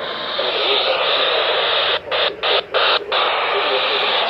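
Loud radio static hiss from a weather radio receiver, which starts abruptly and is broken by four brief dropouts about two to three seconds in.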